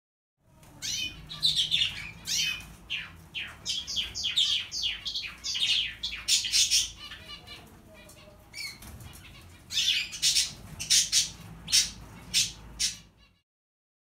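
Caged finches making rapid, short, sharp chirps and flutters in two busy spells with a lull in the middle; the sound cuts off abruptly just before the end.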